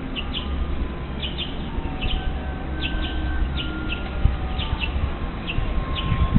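Small birds chirping: short high chirps, often in quick pairs, repeating every half second or so, over a steady low background rumble.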